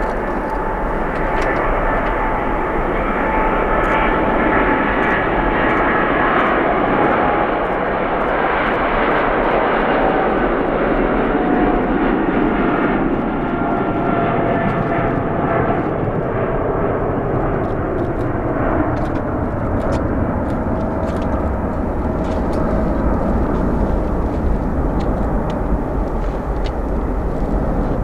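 Boeing 777-300ER's GE90 jet engines running loud and steady, with a whining tone that falls slowly in pitch as the aircraft moves.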